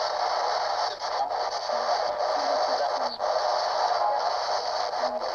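Radio static hissing steadily, cut by brief drop-outs about a second in, near the two- and three-second marks and near the end, with a few short faint snatches of pitched sound in it.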